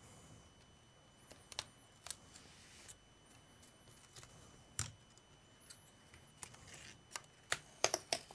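Plastic screen frame of a laptop being pried off: scattered small clicks and snaps, faint, coming quicker near the end.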